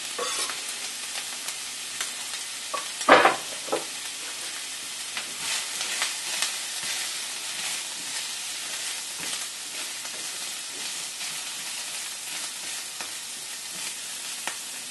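Chopped vegetables sizzling in a hot frying pan as they are stirred with a silicone spatula, with scattered light scraping ticks. A single sharp knock about three seconds in.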